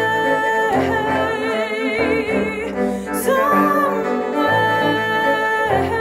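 A woman singing long held notes with vibrato into a microphone, over a bowed cello playing low sustained notes.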